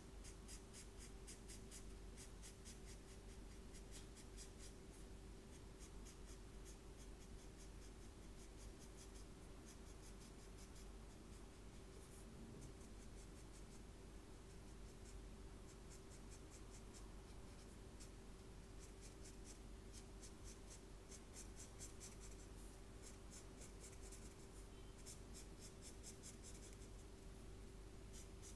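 Felt-tip marker scratching back and forth on sketchbook paper as an area is coloured in, in faint runs of quick strokes with short pauses between them. A faint steady hum runs underneath.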